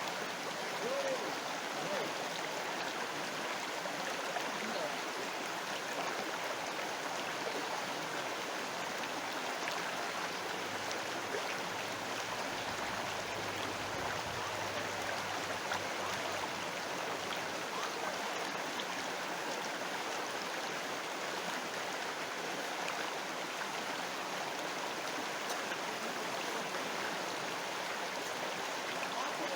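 River water flowing, a steady even rush of water noise with no break or change.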